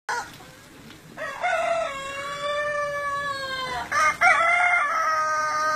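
Long-tailed aseel roosters crowing: two long, drawn-out crows back to back, the first starting about a second in and held for over two seconds, the second following straight after it.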